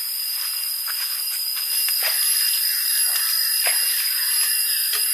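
Steady high-pitched buzzing of forest insects, with a few light splashes of water as hands work in a shallow pool; the sound gets louder about two seconds in.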